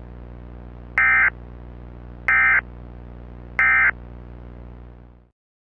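Emergency Alert System end-of-message tones: three short bursts of SAME digital data, each about a third of a second long and about a second apart, signalling the end of the alert. A steady low hum beneath them fades out a little after five seconds in.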